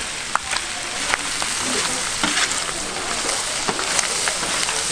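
Pork offal sizzling on a large flat iron griddle: a steady hiss with scattered sharp taps and clicks of utensils and knife.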